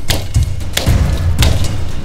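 A large knife blade chopping into the base of a green bamboo stalk: about five sharp, separate strikes, each with a dull thud.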